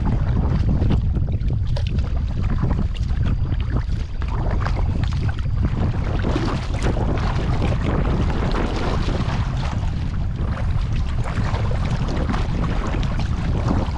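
Heavy wind buffeting the camera microphone as a low, steady rumble, with irregular water splashing and sloshing around a kayak on the river.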